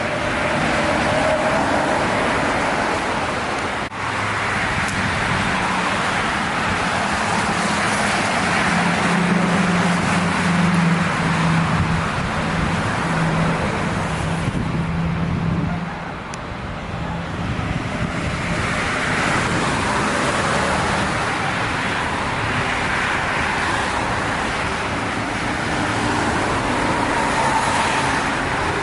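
Steady noise of heavy road traffic passing close by, with a big engine's low drone strongest around the middle, and a brief lull about halfway through.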